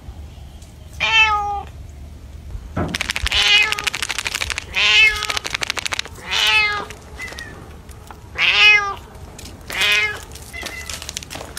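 Domestic cat meowing repeatedly, about six loud meows a second or two apart, one of them rough and rasping. The cat is begging for food at dinner time.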